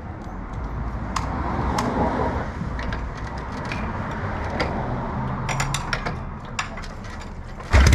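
Kick-starting a 1981 Harley-Davidson Shovelhead V-twin with the enricher off: scattered clicks and clunks over a low rumble, then near the end the engine suddenly catches and runs loudly.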